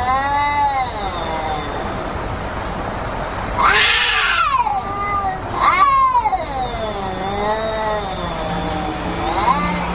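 Angry cat yowling in about four long, drawn-out wails whose pitch bends up and down. The longest lasts close to three seconds, and the last begins rising near the end.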